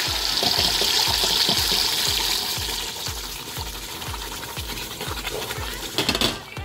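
Tomatoes frying in hot oil in a stainless steel pot, a loud sizzling hiss that fades after the first few seconds, with a brief louder burst about six seconds in.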